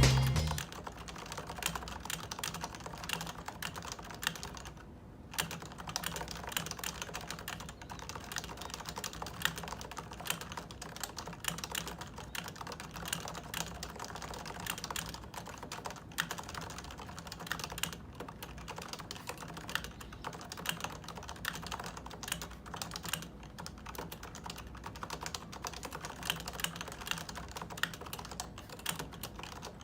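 Continuous fast typing on a Topre electrostatic capacitive keyboard: a dense run of soft, even key clicks, with a brief pause about five seconds in.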